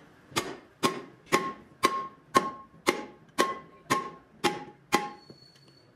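Hammer striking a steel wheel disc seated inside a steel wheel rim, about two blows a second, ten in all. Each blow rings with a short metallic tone, and the blows stop about five seconds in.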